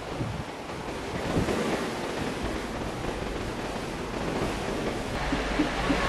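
Ocean waves rushing along the hull of a cruise ship at sea, with wind buffeting the microphone.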